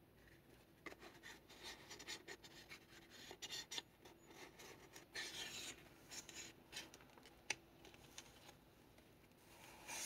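Faint rustling, rubbing and sliding of paper and card, with scattered light taps and clicks, as the pages and cards of a handmade paper junk journal are handled; a longer scraping stretch comes about halfway through.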